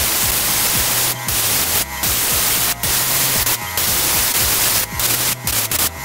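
Air spray gun hissing as it sprays rust-proofing undercoat onto a car's underbody, in long bursts broken by brief trigger releases about six times.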